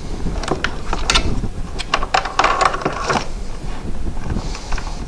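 Handling noise of cables and plastic parts in a hard plastic equipment case: a run of irregular clicks, taps and rattles, thickest in a clatter near the middle, as a probe cable is moved and routed.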